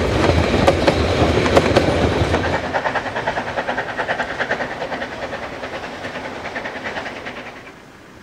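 Narrow-gauge railway coaches rolling past close by, their wheels clattering over the rail joints. About two and a half seconds in the sound drops to a quieter, rhythmic clacking that fades away as the train moves off, dying out near the end.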